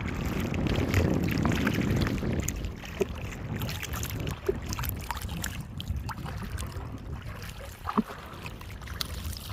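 Water sloshing and splashing around a small fishing boat, with a few light knocks; louder for the first couple of seconds.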